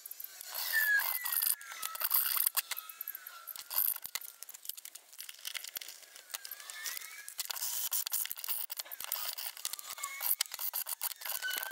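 Hand tools scraping and prying at the crimped metal end cap of a Trustfire 18650 lithium-ion cell: a dense run of small clicks and metal scraping, with thin squeaks that slide up and down in pitch.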